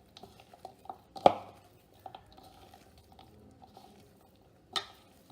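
Onion pakoda batter (sliced onions, bajji flour and a little water) being mixed in a mixing bowl: faint soft stirring and squishing with small ticks, and two sharp knocks, one about a second in and one near the end.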